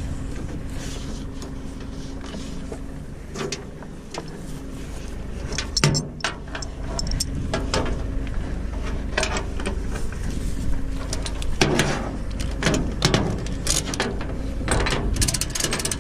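Flatbed tow truck's engine held at raised revs, with a steady hum that comes and goes, and scattered metallic clanks and knocks, the loudest about six and twelve seconds in.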